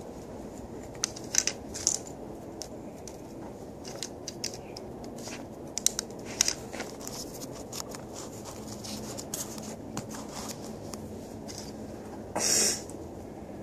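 Plastic Lego bricks being handled and snapped together: scattered sharp clicks and taps, with a short louder scraping rustle near the end.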